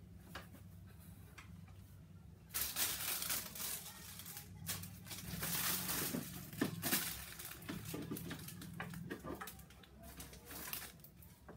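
Rustling and crinkling of plastic packaging, cardboard and fabric as items are handled and pulled out of a cardboard shipping box, starting about two and a half seconds in, over a steady low hum.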